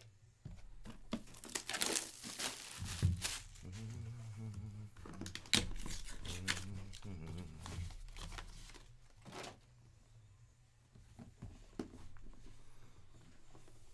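Rustling and crinkling of trading-card packaging and a rigid card box being handled, with scattered taps and clicks; the sharpest click comes about five and a half seconds in, and the handling grows quieter after about ten seconds.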